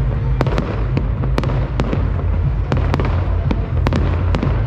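Fireworks going off: a steady run of irregular sharp bangs and crackles, several a second, over a continuous low rumble.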